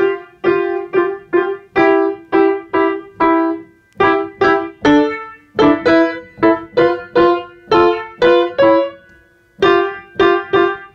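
Piano played in short, separate notes, about two to three a second, picking out a simple repeating tune, with a brief pause about nine seconds in.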